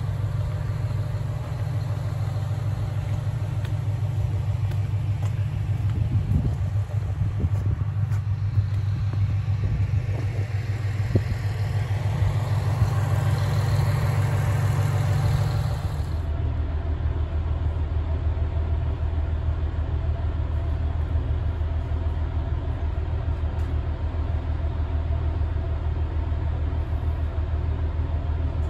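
Tosa Kuroshio Railway diesel railcar running, heard from on board: a steady low engine rumble with rising rolling noise. About sixteen seconds in, the higher noise cuts off suddenly and the engine settles to a lower, steadier note.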